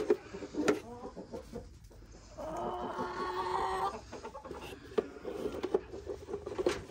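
Hens clucking, with one drawn-out call lasting over a second about two and a half seconds in. Light rustling in wood shavings and a few small knocks come through as eggs are picked up and put in a plastic bucket.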